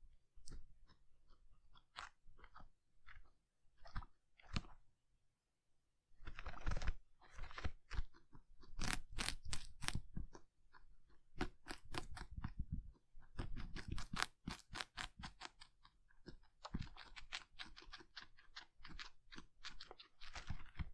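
Guinea pig biting and chewing crisp celery stalks close to the microphone: a few scattered small clicks for the first few seconds, then rapid, continuous crunching from about six seconds in.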